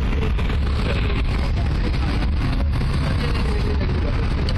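Tram running, heard from inside as a steady low rumble, with faint voices underneath.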